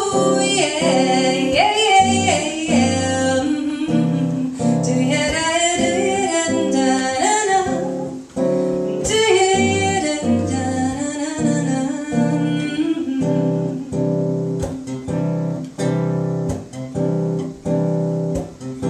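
A woman singing with her own strummed acoustic guitar. About two-thirds of the way through, the voice stops and the guitar strums on alone.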